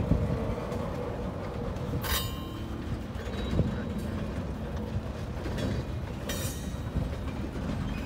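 Freight cars of a passing train rolling by: a steady rumble of steel wheels on the rails. Two brief high-pitched metallic squeals come about two seconds in and again a little after six seconds.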